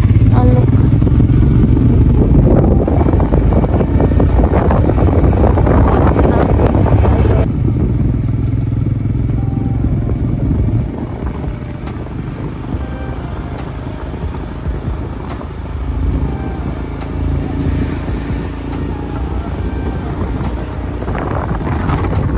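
Motorcycle riding along a road, its engine running with a steady low rumble mixed with rushing road and wind noise. It is loud for the first several seconds, then eases to a quieter run about halfway through as the bike slows.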